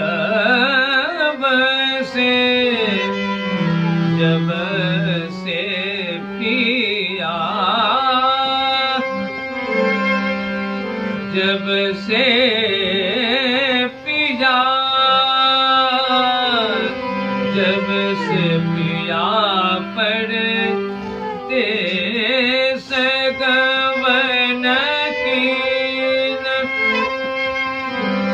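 Violin playing raga Yaman in Hindustani classical style, with sliding, ornamented phrases over steady chords held on a harmonium.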